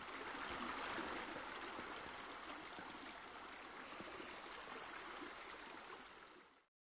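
Steady running water, a stream-like rush with no rhythm, that stops near the end.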